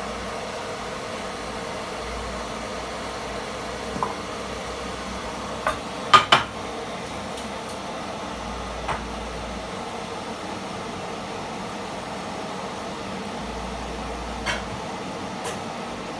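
Electric kettle heating towards the boil with a steady rushing noise, while light glassy clinks and knocks of kitchenware come now and then, the loudest a quick pair about six seconds in.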